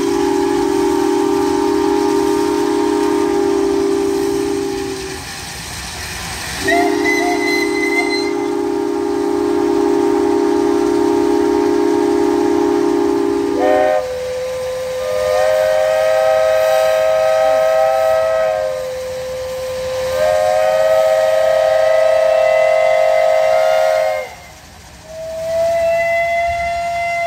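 Steam whistles blowing long, held blasts. A deep whistle sounding several notes at once is blown twice, about five and seven seconds long. Then a higher whistle is held for about ten seconds, dipping briefly in the middle, and a shorter blast comes near the end.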